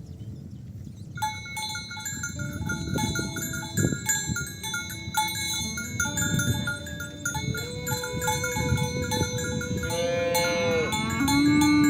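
Cowbells on cattle clanking and ringing irregularly as the animals walk, starting about a second in. In the second half cows moo in long calls, the loudest beginning near the end.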